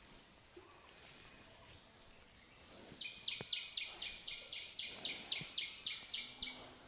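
A bird calling a quick series of about fourteen short, high, evenly repeated notes, about four a second, starting about three seconds in and stopping shortly before the end.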